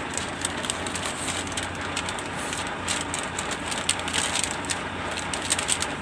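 Steady running noise of a truck heard from inside its cab with the side window open, with scattered crackles throughout.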